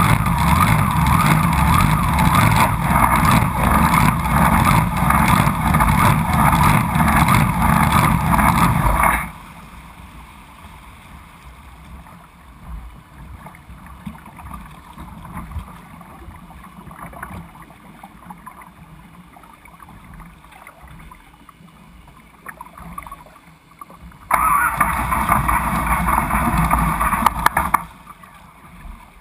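Race boat engine running hard with spray rushing past the stern, then cutting off suddenly about nine seconds in. Quieter water sloshing and wind follow as the boat slows. Near the end the engine runs loud again for about three seconds, then stops.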